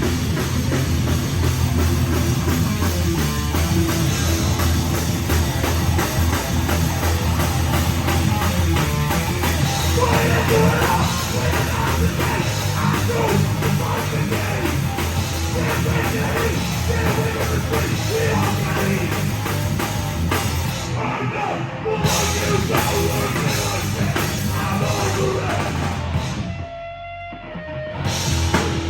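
Live heavy rock band playing loudly: distorted guitars, bass and a drum kit, with some shouted singing. Near the end the band cuts out for a moment, leaving a single ringing guitar note, then crashes back in.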